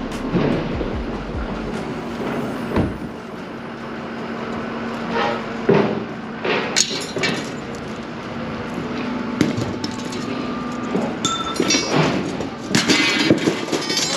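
Scrap metal clanking and clattering as rusty pieces are hauled by hand out of a truck bed and dropped, with several ringing metallic clangs, loudest in the second half, over a steady low engine hum.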